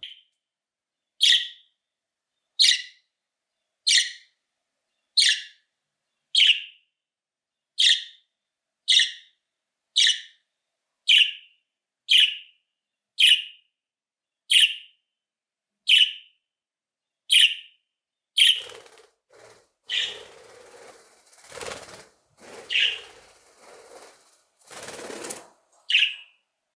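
Budgerigar giving short, sharp contact calls, one about every second, repeated over and over. In the last few seconds the calls thin out and a fluttering of wings comes in as the bird flaps and leaves its perch.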